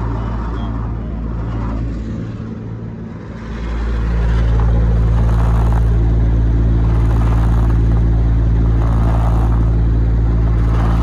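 Condenser fan of a York condensing unit running steadily with a low hum and a loud rush of air, getting louder about four seconds in. The fan motor is wobbling, which creates lots of vibration.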